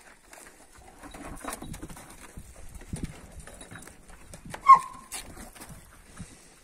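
A dog gives one short, loud yelp about four and a half seconds in, over footsteps on dirt and the rustle of a plastic bag.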